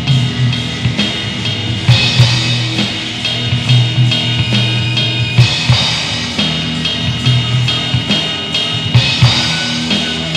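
Live rock band recording with the drum kit to the fore: frequent hits on drums and snare over sustained ringing tones underneath, from a drum-led improvised section of the song.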